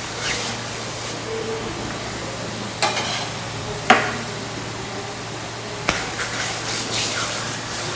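Hands rubbing warmed mustard oil onto the chest: a soft steady swishing, with a few sharp knocks about three, four and six seconds in.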